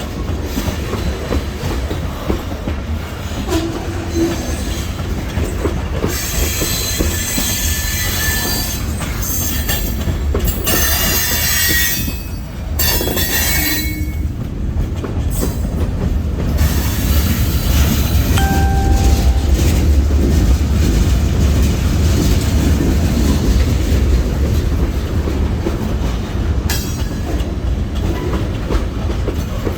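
Freight train rolling with a heavy, steady rumble, its steel wheels squealing on the rails for several seconds about a fifth of the way in and again briefly near the end.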